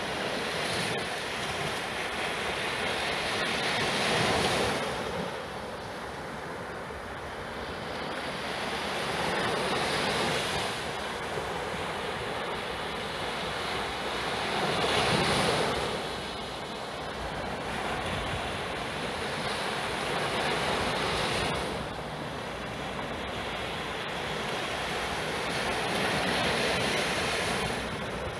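Sea surf at the shoreline: small waves breaking and washing up the sand, the rush swelling about every five to six seconds and easing between.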